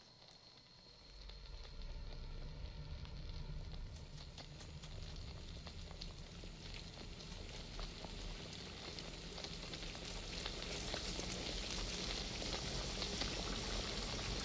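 A large pot on the stove boiling hard, bubbling and sizzling with many small pops. It starts about a second in and grows steadily louder.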